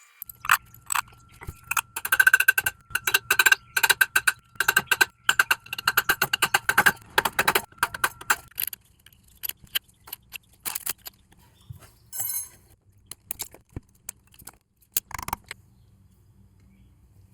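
Steel parts of a CV joint clicking and rattling against each other as they are handled and fitted together: a dense run of clicks for several seconds, then scattered single clicks that stop about 15 seconds in.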